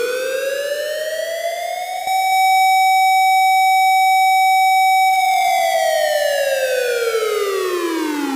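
Siren tone of an emergency-alert fire alarm, with one rise and fall. It climbs in pitch, holds a steady, louder note for about three seconds, then glides back down.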